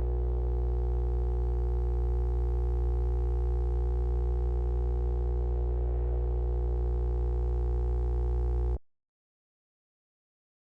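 A steady electronic drone of several held tones over a deep hum, unchanging until it cuts off abruptly about nine seconds in.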